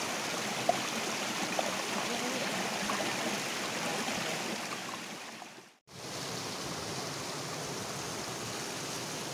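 Small rocky stream rushing and burbling steadily over stones, with a couple of small knocks in the first two seconds. The sound cuts out briefly about six seconds in and resumes a little quieter.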